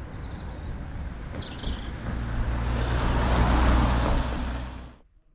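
A small hatchback car driving by on a wet road. Its tyre hiss and engine hum grow louder as it nears, then cut off abruptly near the end.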